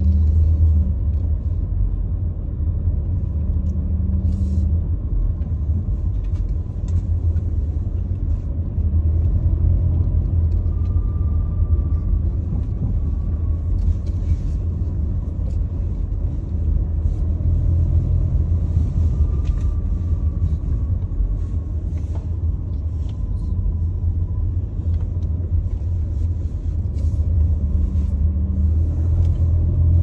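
Steady low rumble of a car's engine and tyres heard from inside the cabin while it drives along a road.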